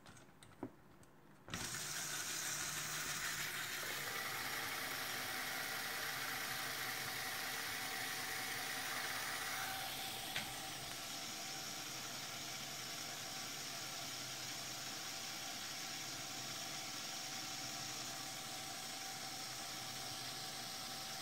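LEGO Technic electric motor driving a geared-down drive train, switching on about a second and a half in and then running with a steady whir. A single click about ten seconds in, after which it runs slightly quieter.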